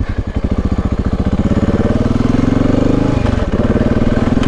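Dual-sport motorcycle engine pulling away, its firing pulses quickening over the first two seconds as it speeds up. It then runs at steady revs, with a brief dip in revs about three seconds in.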